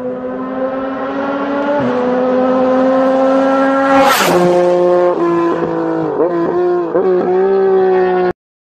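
Yamaha MT-09's three-cylinder engine through an aftermarket exhaust, pulling with slowly climbing revs. The pitch drops slightly about two seconds in, then sharply with a brief burst about four seconds in, as when shifting up a gear, and runs lower with a few short throttle dips before the sound cuts off suddenly.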